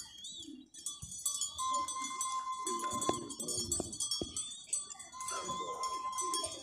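Live festival performance sound: bells ringing and voices, with a high held note about a second long that comes back several times, and a few sharp knocks.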